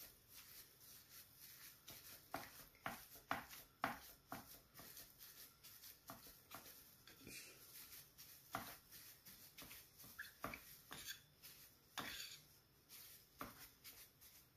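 Metal spoon scraping and tapping against a glass baking dish while flaking and mixing canned tuna: quiet, with irregular sharp clicks scattered through it.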